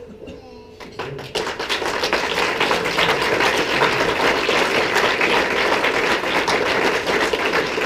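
A roomful of guests applauding, starting about a second in and quickly building to steady, dense clapping.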